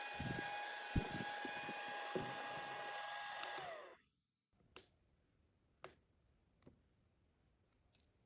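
Mini handheld spray fan running with a steady high whine over a rush of air, with a few low knocks from handling. About three and a half seconds in it clicks off, and the whine slides down in pitch and stops, leaving quiet broken by a few light clicks.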